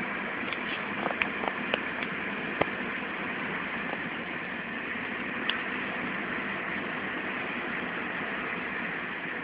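Steady vehicle engine noise, with several sharp clicks in the first three seconds and one more about five and a half seconds in.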